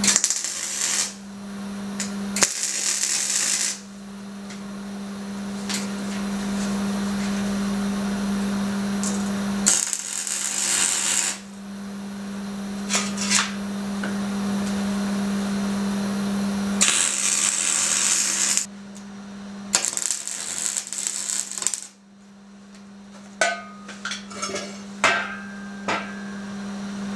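MIG welder laying tack welds on steel angle iron: about five crackling, sizzling bursts of arc, each one to two seconds long, with a steady low hum between them. A few light metallic clinks near the end.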